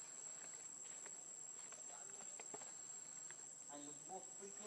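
Faint outdoor ambience: a steady high-pitched insect drone, with scattered small clicks and faint distant voices near the end.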